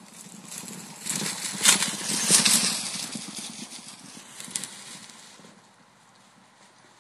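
Herd of Arabian horses galloping past over grass, a dull drumming of many hooves that builds about a second in, peaks around two seconds and fades away by about five and a half seconds.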